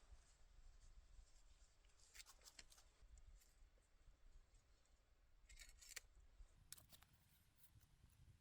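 Near silence, broken by a few faint, crisp rustles and clicks about two, six and seven seconds in.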